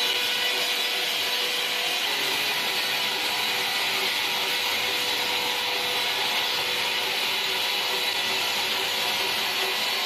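Horizontal band sawmill blade cutting through a large squared timber block: a steady, even sawing noise with faint steady tones underneath, unchanging throughout.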